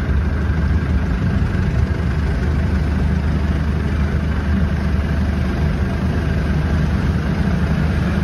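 Long-tail boat engine running steadily, a loud low drone with no change in speed.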